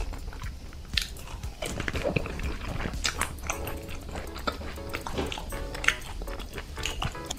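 Close-miked chewing of a mouthful of food: a run of crisp crunches and wet mouth clicks, irregular and spread through the whole stretch.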